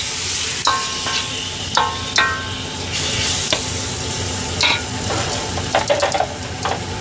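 Bean sprouts, bok choy and bacon sizzling in a hot wok while a metal ladle stirs them. The ladle knocks against the wok about seven times, each knock a short metallic ring, with a quick cluster near the end.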